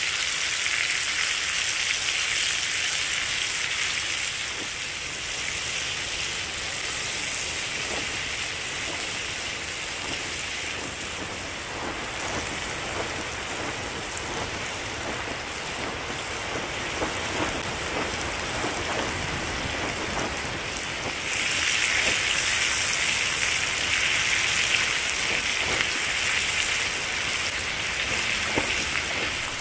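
Asparagus, red pepper and carrot frying in oil in a small cast-iron skillet over a twig stove: a steady sizzle with fine crackles, growing louder about two-thirds of the way in.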